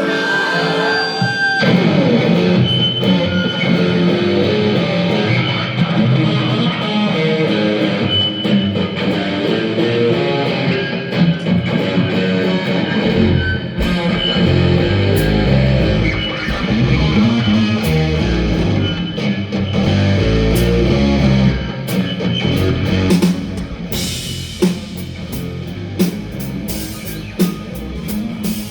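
Live rock band playing an instrumental passage: electric guitar over bass and drums. The low end grows heavy about halfway through, and in the last few seconds the drums hit in a steady, regular beat.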